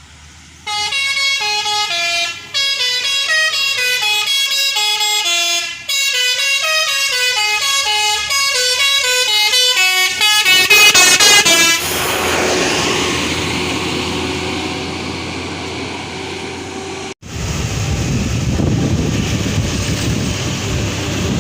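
Telolet multi-tone musical horn on an ALS intercity bus playing a fast tune of stepped notes for about ten seconds, quickening near the end of the tune. Then one steady horn tone over loud engine and road noise, a sudden break about seventeen seconds in, and engine and road noise after it.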